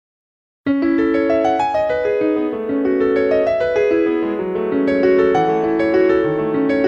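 Silence, then instrumental background music starts abruptly under a second in: a piano melody of separate notes over lower bass notes.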